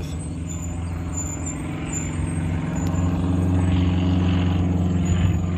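Diesel engine of a shuttle bus running with a steady low hum, growing louder about halfway through as it comes nearer.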